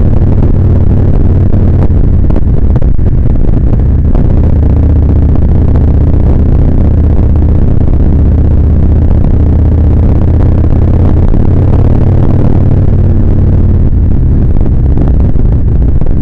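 Kawasaki Vulcan 1600 Nomad's V-twin engine running steadily under way, heard on board as a loud, deep, even throb.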